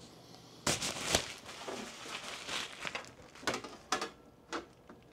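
Packaging crinkling and rustling as it is handled, in irregular bursts with a few sharp crackles, starting about a second in.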